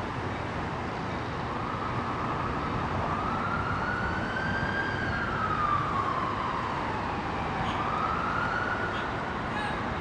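An emergency-vehicle siren wailing, slowly rising and falling in pitch and then rising again near the end, over a steady low rumble.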